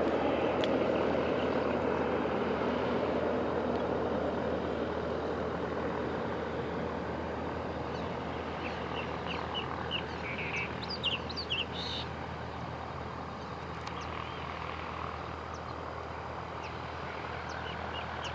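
Twin turbofan engines of a Cessna Citation II/SP jet passing overhead and climbing away after an aborted landing, the jet noise slowly fading. Birds chirp briefly about halfway through.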